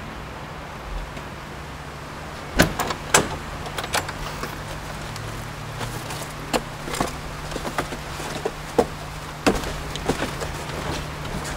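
Cardboard produce boxes and a car's open boot being handled: two sharp clacks about two and a half seconds in, then scattered knocks, scrapes and clicks as the boxes are shifted in and out of the boot, over a low steady hum.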